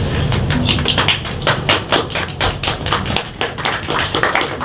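A small audience applauding: a dense, irregular patter of individual hand claps.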